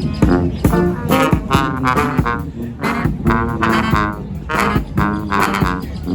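Brass band playing live: several horns sound pitched notes in a rhythmic tune over regular percussion hits.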